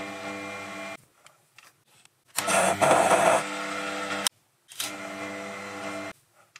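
Proxxon PD 250/e mini lathe running in three short bursts, starting and stopping with brief pauses between, as it takes repeated thread-cutting passes on a steel part. The middle run is louder and rougher for its first second.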